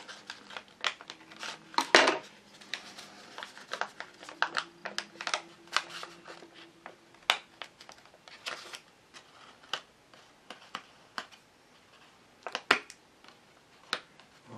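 Folded sheet of printer paper crackling and rustling in the hands as it is squeezed and pried open, in an irregular run of sharp crinkles, loudest about two seconds in and near the end.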